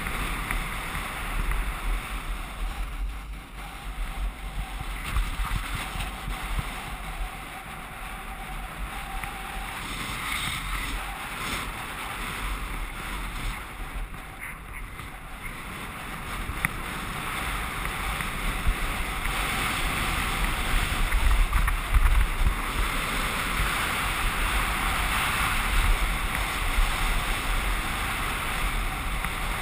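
Wind rushing over the microphone and skis hissing and scraping over packed snow while skiing downhill, getting louder about twenty seconds in.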